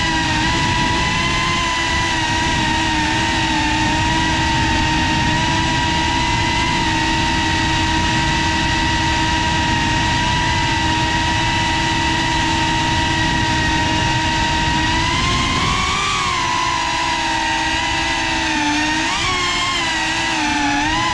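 Brushless motors and ducted propellers of a GEPRC Cinelog35 FPV cinewhoop drone whining at a steady pitch in flight. The pitch swings up and down about three quarters of the way in and again near the end.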